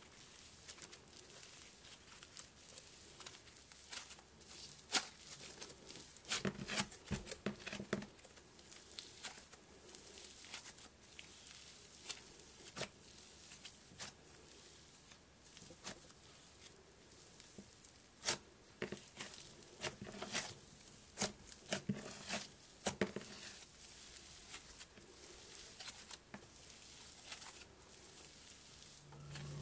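Hands kneading, stretching and tearing apart a fluffy yellow slime mixed with white snow-like granules: a string of crackles, tearing sounds and sharp little pops, busier in two stretches.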